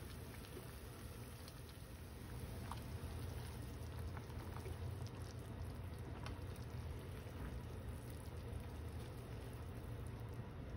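Pork and wakame soup simmering in a small aluminium saucepan, a steady bubbling with a few faint clicks scattered through it.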